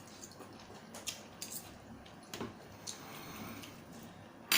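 Someone eating squid salad: soft wet chewing with small clicks of tableware, and a sharp, louder hissing burst near the end.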